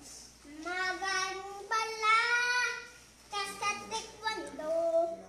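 A young boy singing alone with no accompaniment: a long held note through the middle, then shorter sung phrases near the end.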